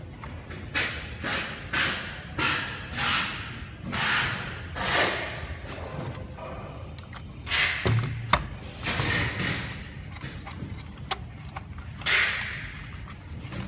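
Hands handling the opened plastic housing and wiring of a robot vacuum: a run of short scraping and rustling noises, about seven in the first five seconds, then a few more, with a sharp knock near the middle.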